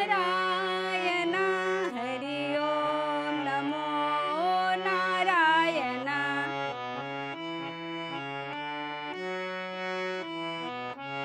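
Harmonium playing a devotional melody over held low notes, with a woman's voice singing a gliding, ornamented line over it for about the first six seconds, after which the harmonium continues alone.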